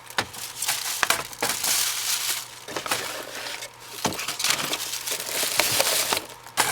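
Packaging crinkling and rustling as a boxed car stereo is handled, with irregular clicks and crackles over a faint steady low hum.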